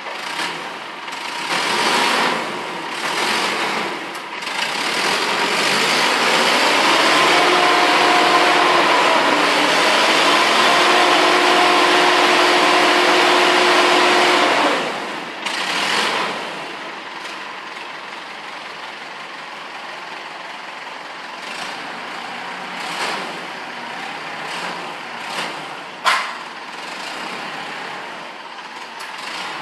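Forklift running, with its hydraulic lift working hard and giving a steady whine for about ten seconds as the paper roll clamp raises a roll up the mast. It then drops back to a quieter steady running sound, with one sharp clack near the end.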